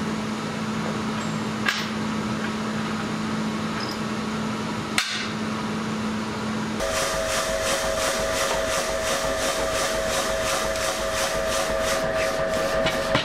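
Two sharp metallic clicks as short pieces of steel bar are set down on a steel workbench, over a steady hum. About seven seconds in, the hum changes to a steady higher tone with a fast, even pulsing.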